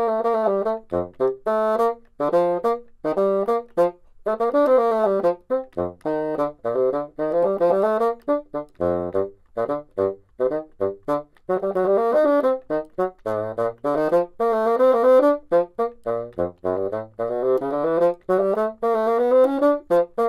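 Solo bassoon playing a fast etude: quick runs of short, detached notes rising and falling, with occasional leaps down to low notes.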